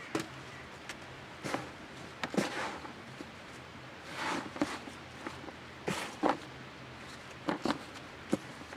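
Gloved hands digging through potting compost in a potato container: irregular rustling, scraping and soft knocks as the soil is scooped and shifted.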